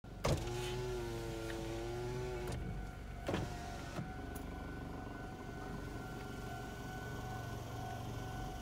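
A car's power window motor whirs for about two seconds and stops with a knock. A level-crossing warning bell then sounds steadily, with a couple of knocks in between.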